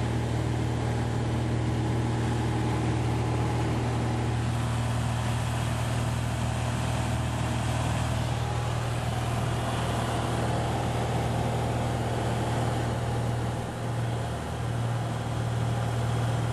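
Cabin drone of a 1961 Cessna 172B in cruise flight: its Continental O-300 six-cylinder engine and propeller running steadily under a constant rush of airflow. The sound softens briefly about fourteen seconds in.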